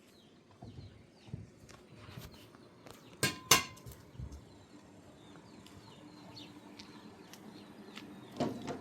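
Metal objects clinking and knocking: a few light knocks, then two sharp ringing clinks about three seconds in, the loudest sounds, and a duller knock near the end. Birds chirp faintly throughout.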